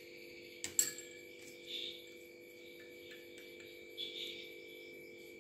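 Two sharp clicks of kitchenware being handled about a second in, with a few fainter ticks later, over a steady electrical hum and a fast, even high chirping in the background.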